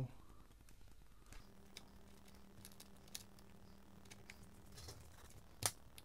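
Faint clicks and taps of hands working on a laptop's plastic bottom cover while its screws are put back in, with one sharper click near the end.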